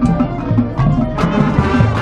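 Marching band playing, with percussion prominent: pitched mallet-like notes over repeated drum strikes.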